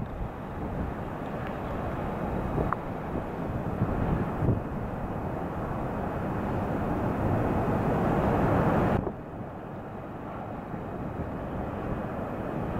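Storm wind rushing and rumbling on the microphone, building to a strong gust that cuts off suddenly about nine seconds in.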